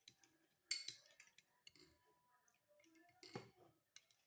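Faint clinks and scrapes of a spoon stirring a thick olive-oil and ground-cinnamon mixture in a small bowl, with two louder knocks of the spoon against the bowl, one near the start and one past the middle.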